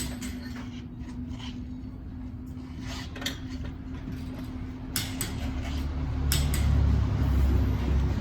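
Scattered clicks and knocks of hand work on a car, over a steady low hum that grows louder near the end.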